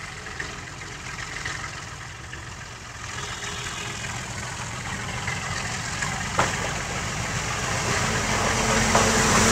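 Diesel locomotive engine running as it approaches along the track, a low drone growing steadily louder. One sharp knock about six and a half seconds in.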